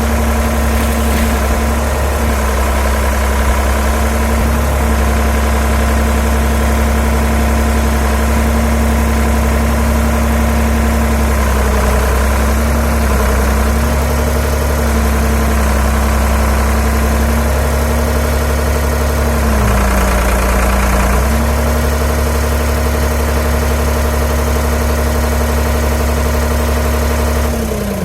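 Doosan DX35z mini excavator's diesel engine running steadily at working throttle. Its pitch sags briefly twice, about twelve seconds in and again around twenty seconds, as the machine takes load, then recovers.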